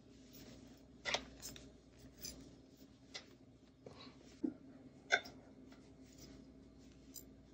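Knitting needles clicking softly and irregularly as stitches are worked, over a faint steady room hum.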